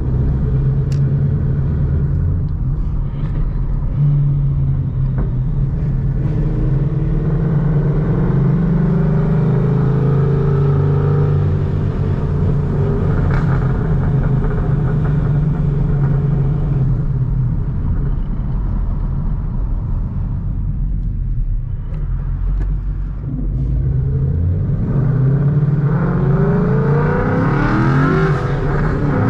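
Ford Mustang Boss 302's 5.0-litre Road Runner V8 running through long-tube headers and side pipes with the restrictors removed: a steady deep exhaust note at moderate engine speed, rising in pitch as it accelerates over the last few seconds.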